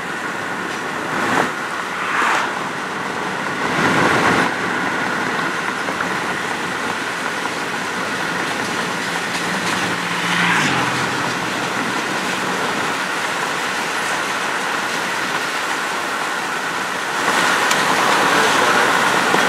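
Steady road and tyre noise heard inside a moving car's cabin, with a few brief louder swells, getting louder about seventeen seconds in.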